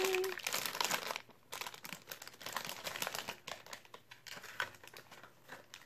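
Plastic blind-bag packet being crinkled and opened by hand. The crackling is densest over the first second or so, then thins to lighter, scattered crinkles.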